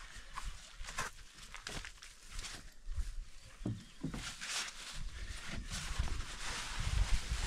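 Rustling and light knocks of a nylon carp cradle and weigh sling being handled and opened out, with a low wind rumble on the microphone in the second half.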